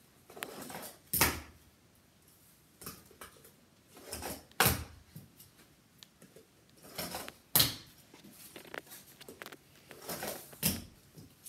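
Cardboard fingerboard ramps being handled and moved around on a felt-covered table: a few sharp knocks, about three seconds apart, with softer scraping and rustling between them.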